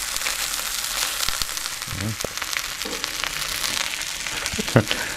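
Bacon and sausages sizzling steadily on a hot stainless-steel plancha, with a few light clicks of the metal turner and tongs as the bacon is turned.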